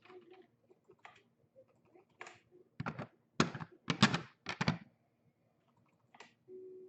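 A series of light knocks and clicks, most of them bunched together in the middle: hard objects being handled and set down on a tabletop.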